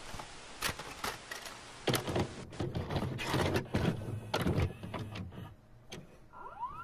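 Video cassette player's tape mechanism: a run of clicks and clunks, then a short rising whine near the end as it spins up to play, with a hiss that fades out over the first couple of seconds.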